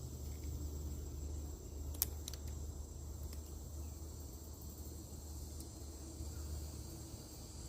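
Quiet outdoor ambience: a steady low rumble with a thin, high insect drone, and a few sharp clicks about two and three seconds in.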